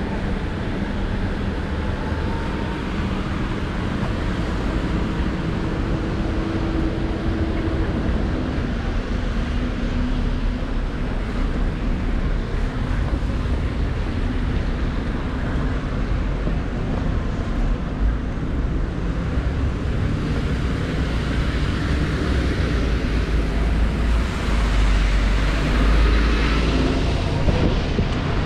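City street traffic ambience: cars and buses running past on rain-wet roads, a steady mix of engine rumble and tyre noise. A heavier vehicle passes closer about 25 seconds in, louder with a deep rumble.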